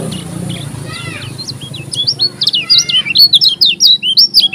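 Kecial kuning (white-eye) singing a fast run of short, high whistled sweeps. It starts with a few faint arched notes and becomes a loud, dense burst about two seconds in.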